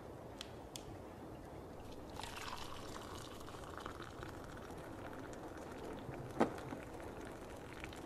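Liquid poured into a vessel for about three seconds, the pour's pitch creeping slightly upward, then a single sharp click a little over a second later, over a steady background hiss.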